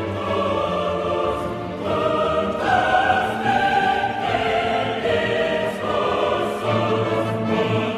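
Background choral music: a choir singing long held chords that change every second or so.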